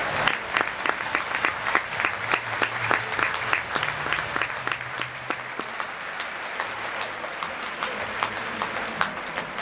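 Audience applauding: dense clapping at first that thins to scattered claps later on.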